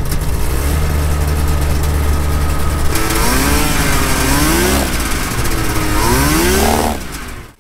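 Two-stroke engine of a Quicksilver ultralight running on the ground, steady at first, then rising and falling in pitch several times from about three seconds in as the throttle is worked, with a last rise before it fades out.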